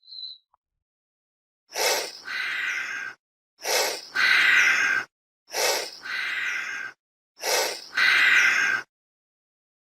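Chameleon hissing in a steady rhythm: four times, a short sharp puff followed by a longer breathy hiss, about every two seconds.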